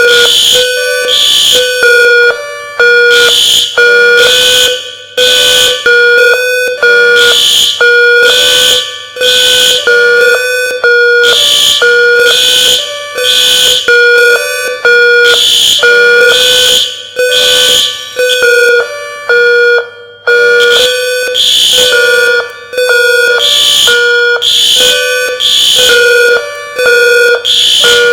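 Building fire alarm sounding its loud evacuation signal: short electronic tones at several steady pitches, pulsing on and off in a fast repeating pattern.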